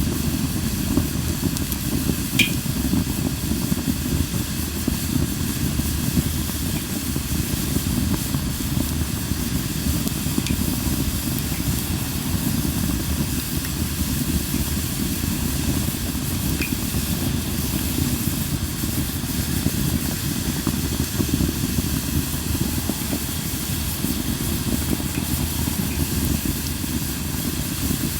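Japanese linden (shinanoki) firewood burning with a steady hiss, broken by a few sharp crackles, one about two and a half seconds in and one near the middle.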